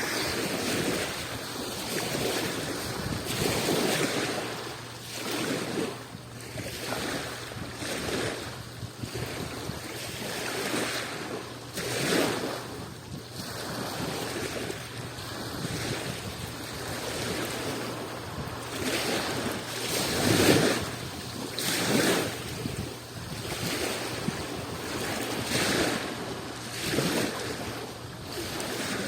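Adriatic Sea waves washing on the shore in irregular surges every second or few, one louder surge about two-thirds of the way through.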